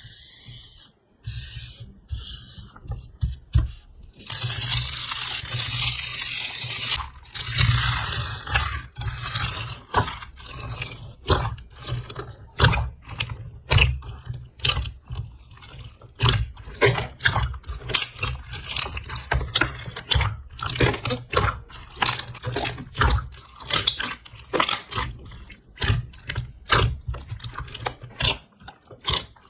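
Slime being squeezed, stretched and pressed by hand: a close, dense run of irregular wet, sticky crackles and pops, with a steadier hissing stretch about four seconds in.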